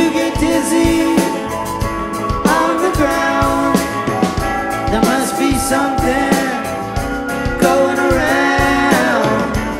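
A rock band playing a song: electric guitars, bass guitar and drum kit with keyboards, and a sung vocal line.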